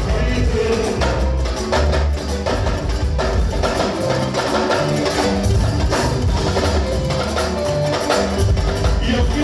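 Live mbalax band music played loud, with busy, clattering percussion over a heavy bass line and keyboard.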